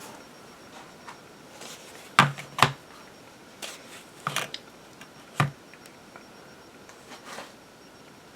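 Metal Zippo lighters being handled and set down on a surface: a string of sharp clicks and knocks, the loudest two close together about two seconds in, then a few more spread out.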